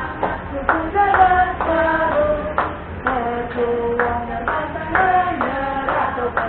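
Voices singing a chant-like song, with sharp hand claps struck every half-second or so.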